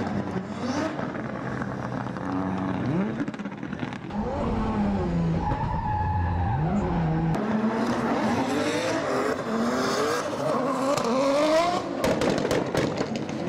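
Drift cars' engines revving hard, the pitch climbing and falling again and again as they slide, with tyres squealing on the tarmac. A cluster of sharp cracks comes near the end.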